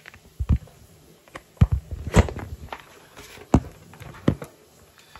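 Irregular thumps and knocks, about half a dozen in five seconds.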